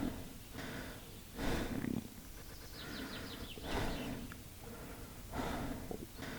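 Stomach growling and gurgling. Low rumbles come in surges with a whoosh about every two seconds.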